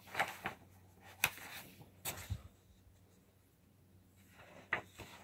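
A few short rustles and taps of paper pages being handled, several brief sharp sounds spread out with gaps between them, over a low steady hum.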